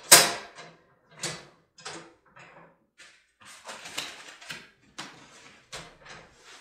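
Knocks and light clatter from a Winnerwell stainless steel tent stove being handled: one sharp knock at the start, then a run of smaller uneven knocks and scrapes.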